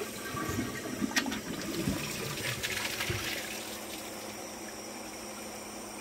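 Kohler Embrook toilet flushing: water rushes through the bowl and down the drain with a sharp click about a second in. It is loudest for the first three to four seconds, then dies away.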